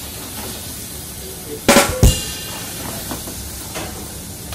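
Chicken pieces sizzling in a stainless steel pan, broken by two loud metallic knocks of the pan and a metal spatula less than half a second apart, about a second and a half in; the first rings briefly, the second is deeper.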